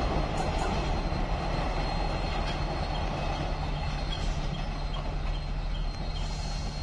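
Express passenger train hauled by a WDP4D diesel locomotive moving away along the line, its coaches rumbling and rattling over the rails and slowly fading. A steady low hum comes in about halfway through.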